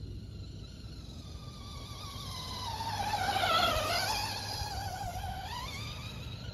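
Brushless electric motor and drivetrain of a large RC monster truck whining as it drives past through grass. The whine swells to its loudest about three and a half seconds in and drops in pitch as the truck passes, then fades and climbs in pitch again near the end as it speeds away.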